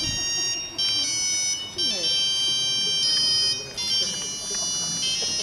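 An electronic tone melody: high, steady beeps that jump from pitch to pitch every half second or so, with voices faint underneath.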